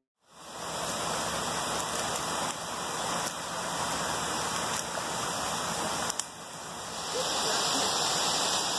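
Creek water rushing steadily below a steep wooded slope, growing louder about seven seconds in.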